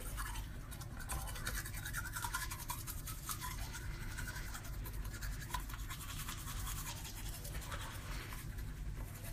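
Teeth being brushed with a toothbrush: quick, even scrubbing strokes that go on steadily.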